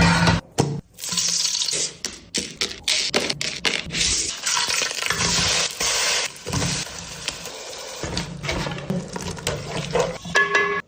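Running water, broken into short segments by abrupt cuts.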